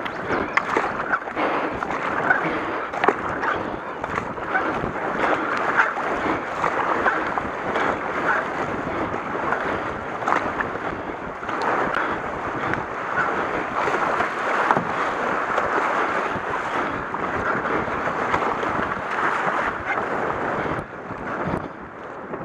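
Steady rush of river water over shallow riffles, broken by the splashes of double-bladed paddle strokes from a K1 racing kayak, with wind on the microphone.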